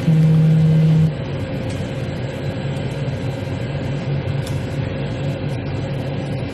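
Steady low hum of background machinery, opening with a louder, flat low tone that lasts about a second and stops abruptly.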